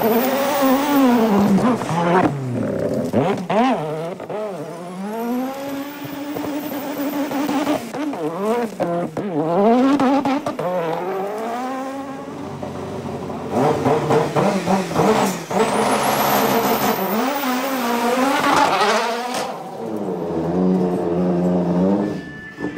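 A rally car's engine revving hard, its pitch swinging up and down again and again as the car slides through dirt, with several brief dips and a few high whining sweeps on top.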